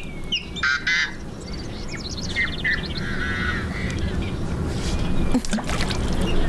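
Farm waterfowl calling in short honking calls, once just under a second in and again around three seconds in, with a few small bird chirps, over a low rumble that grows steadily louder.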